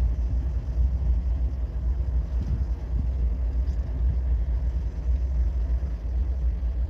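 Diesel-electric freight locomotive idling at a standstill: a steady, deep rumble.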